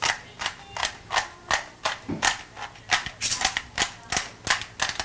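Black pepper being shaken from its container over a raw chicken: a run of sharp taps, about three a second, evenly spaced and even in strength.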